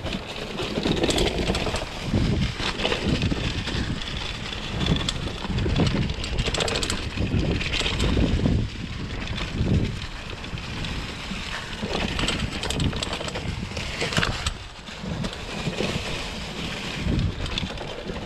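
Wind buffeting the camera microphone while a 2021 Gravity FSX Comp mountain bike rolls fast over a dirt trail covered in dry leaves. The noise swells and dips with scattered knocks and rattles from the bike over the bumps.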